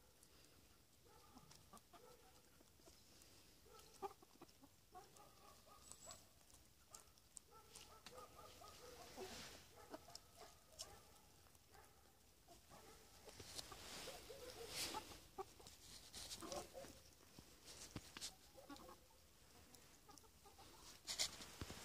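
Chickens clucking softly in many short, repeated calls, with scattered faint clicks and rustles of scratching as they forage.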